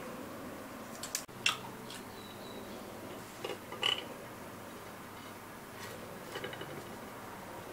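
Scattered light clicks and knocks of small objects being handled, two or three with a short high clinking ring, over a faint steady hiss.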